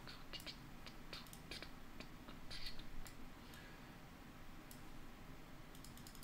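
Faint, irregular clicks of a computer keyboard and mouse, a few a second, busiest in the first three seconds.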